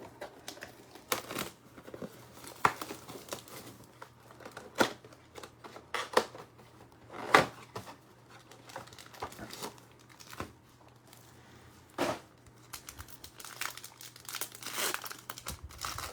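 Packaging of a Select football trading-card mega box being torn open and crinkled, with irregular crackles and sharp rips.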